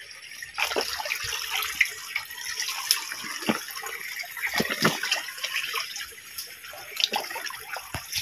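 Shallow stream trickling over stones, with scattered splashes and rustles.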